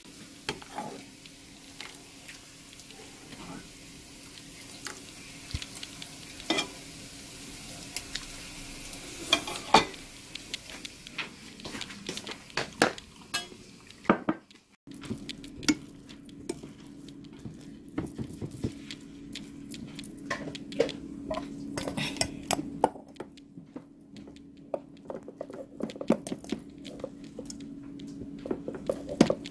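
Spoons and utensils clinking, knocking and scraping against bowls, plates and a pot, many short irregular clicks over a steady low hum. The sound breaks off briefly about halfway through.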